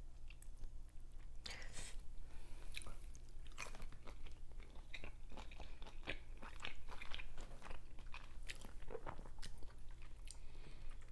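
Close-miked chewing and biting, with many short wet clicks and crunches as seafood and rice are eaten, over a steady low hum.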